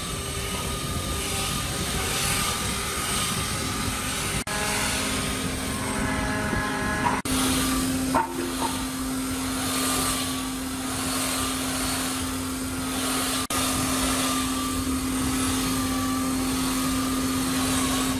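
Handheld belt sander running on a thick solid-wood slab: a steady motor whine over the hiss of the abrasive belt on the wood, with a low steady hum. The sound drops out for an instant three times.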